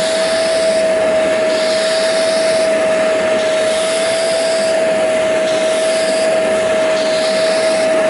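Hoover Spotless portable carpet cleaner running with a steady motor whine, its hand tool sucking at the carpet as it is worked back and forth. A higher hiss swells and fades about once a second with the strokes.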